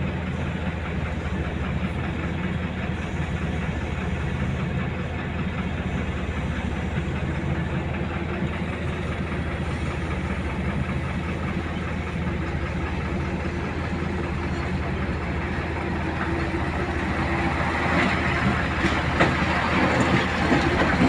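Truck engine running steadily, growing louder near the end, with a few knocks or rattles in the last few seconds.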